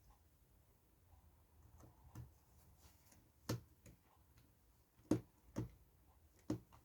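Faint, sparse clicks and taps of small tools and parts on the opened iPhone 5 while its screws are being fitted: about half a dozen short ticks, spaced unevenly, the clearest in the second half.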